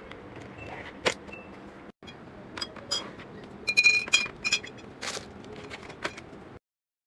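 Glass and hard containers being handled and set down: scattered clicks and knocks, with a quick cluster of ringing glass clinks about four seconds in. The sound cuts off abruptly near the end.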